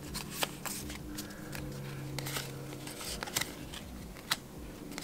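Pokémon trading cards being flipped through by hand: a run of short card-stock slides and light clicks, over a low steady hum.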